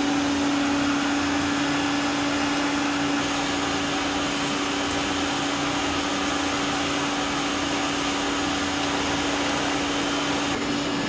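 A small electric motor on a workshop machine running steadily, a constant hum on one tone over a hiss. The hiss dims near the end while the hum carries on.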